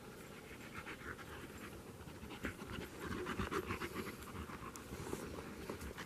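German shepherd panting, faint at first and louder from about halfway as the dog comes close.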